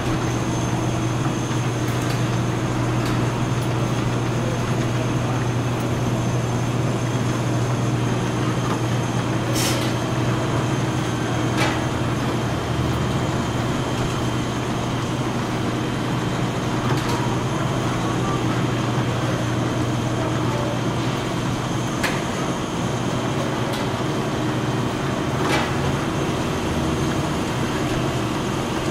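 Automatic rotary bottle-filling machine running: a steady low mechanical hum under a broad whir, with sharp clicks every few seconds.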